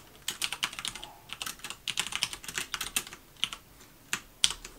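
Typing on a computer keyboard: a quick run of keystrokes for about three seconds, then a few single key presses.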